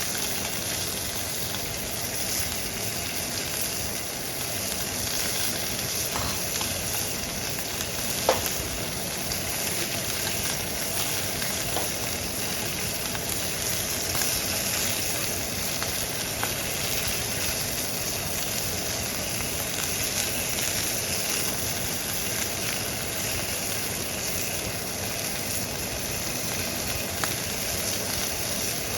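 Steak searing over high heat in a nitrided carbon steel pan: a steady, loud sizzle of fat and juices, with a few sharp pops, the strongest about eight seconds in.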